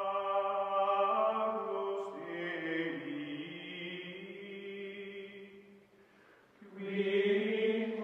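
Background music of chanting voices holding long, steady notes. The sound fades out about six seconds in, and a new phrase swells up near the end.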